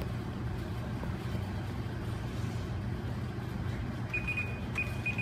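Steady low hum of background room noise, with faint short high-pitched beeps starting near the end.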